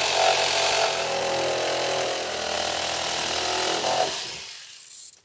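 Corded electric saw cutting through the plastic wall of a 55-gallon drum: a steady motor whine under a harsh rasp of the blade. It trails off and stops about four seconds in.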